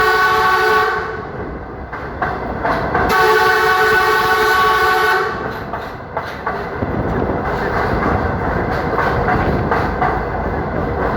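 Train horn sounding two long blasts, each a chord of several steady tones: the first ends about a second in, the second runs from about three to five seconds. After that, the train's wheels rumble along the rails with fast clicking.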